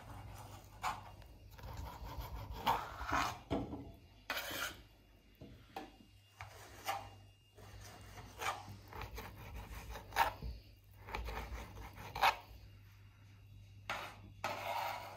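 Kitchen knife chopping chunks of smoked pork fat on a wooden cutting board, irregular knocks and short scrapes of the blade on the wood. Near the end the knife scrapes the diced pieces off the board into a glass bowl.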